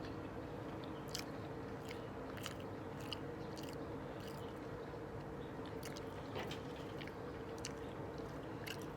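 Close-miked chewing of McDonald's burgers: irregular soft wet mouth clicks and smacks, over a steady low hum.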